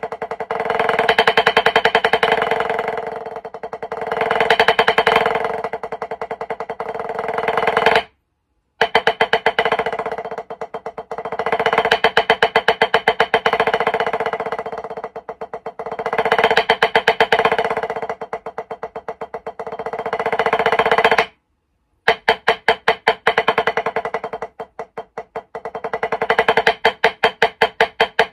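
Snare drum played with sticks in fast, continuous alternating single strokes, grouped in sixes, with a ringing drum tone. The playing swells and fades in loudness every few seconds. It stops briefly twice, about eight and twenty-one seconds in.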